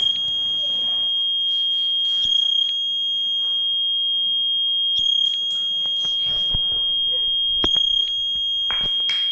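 Honda parking sensor buzzer sounding one continuous high-pitched tone, the warning that an obstacle is very close behind or ahead of the car. Small blips break the tone every two to three seconds.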